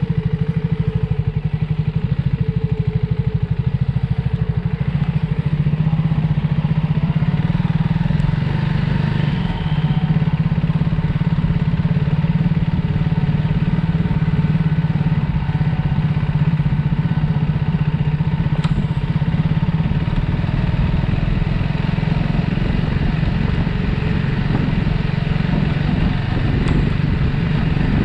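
Triumph Speed 400's single-cylinder engine running steadily at an even pitch, heard from a handlebar-mounted camera.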